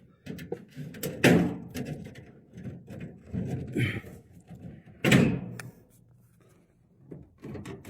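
Knocks, clicks and clatter of hands handling things in a ceiling. Two louder thuds come about a second in and about five seconds in.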